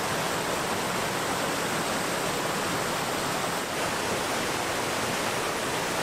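Small waterfalls on a rocky mountain creek, water pouring over boulders in a steady, even rush.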